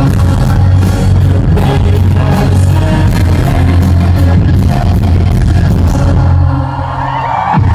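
Live band music played very loudly through a concert PA and recorded close, with heavy bass, a steady drum beat and some singing. About six seconds in the drums and high end drop away, leaving a held low note.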